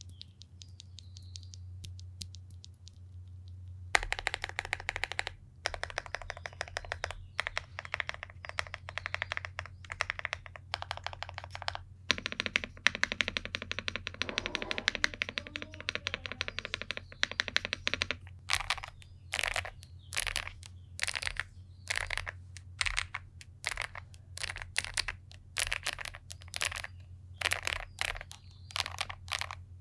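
Epomaker TH85 aluminium mechanical keyboard being typed on, its pre-lubed switches clacking in quick runs of keystrokes from about four seconds in; past the middle the typing slows to separate presses about two a second. A faint low hum sits underneath.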